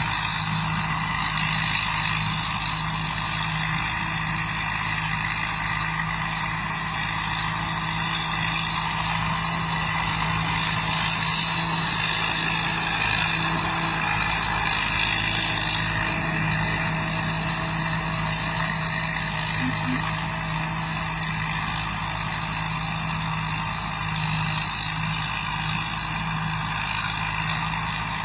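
Combine harvester engine running steadily, with a constant high whine over the machinery noise.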